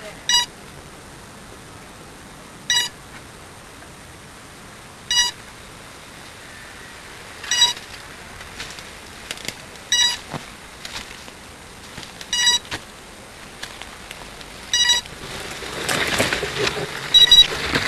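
Electronic beeper on a radio-controlled multicopter giving short, sharp beeps, one about every two and a half seconds, over a steady hiss. Near the end there are scattered clicks and a rush of noise.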